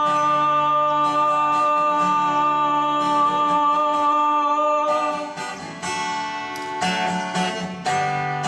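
Live acoustic folk performance ending: a long held sung note over acoustic guitar for about the first five seconds, then strummed closing chords on the acoustic guitar.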